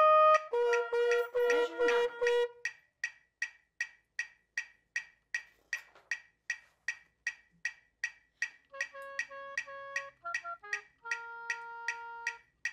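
Backing music track: held melody notes over a steady wood-block click about three times a second. The melody drops out for several seconds in the middle, leaving only the clicks, then comes back in short held notes.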